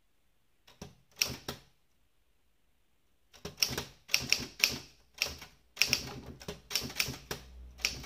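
Olympia SG1 manual typewriter with a wide carriage being typed on, its type bars striking the platen in sharp clacks. A few keystrokes come about a second in, then a pause, then a steady run of typing from about three and a half seconds on.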